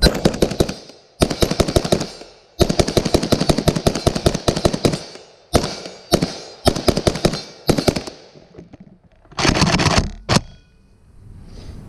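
PSA AK-103 rifle in 7.62x39 firing rapid strings of shots, one string running for a couple of seconds, then several short strings. A loud scuffing noise and a single knock come near the end.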